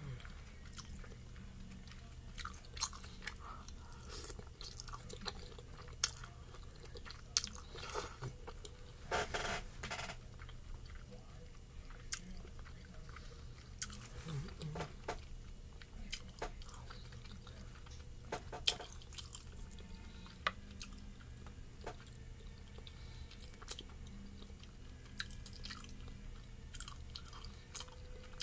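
Close-miked sounds of a person eating spicy noodles and dumplings: chewing and wet mouth sounds, with many short, sharp clicks scattered throughout.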